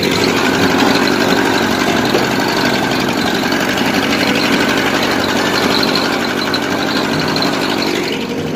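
Old Ford 600 tractor's engine running steadily.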